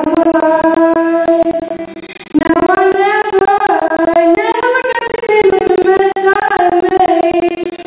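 A girl sings a slow solo melody into a handheld microphone, amplified through the hall's sound system. She holds a long note, breaks off briefly about two seconds in, then sings a gliding phrase of drawn-out notes. Frequent crackling clicks run through the sound from a faulty audio feed.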